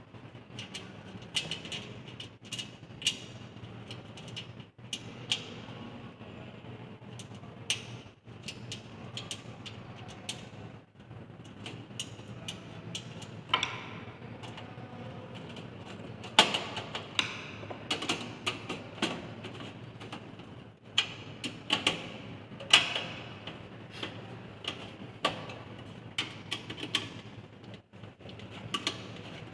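Computer parts being handled inside a desktop system unit: an irregular string of clicks, knocks and scrapes, with a low steady hum underneath.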